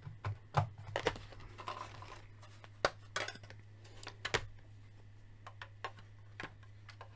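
Hard plastic toy parts clicking and knocking as a Hasbro Mission Fleet speeder bike is handled and slotted into the hold of a Mission Fleet Razor Crest toy ship: a string of light clicks, sparser after about five seconds, over a steady low hum.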